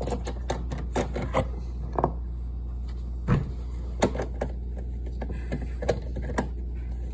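Hard plastic parts clicking and knocking as a removed part is pushed back into a dishwasher's base pan, with one heavier thump about three seconds in, over a steady low hum.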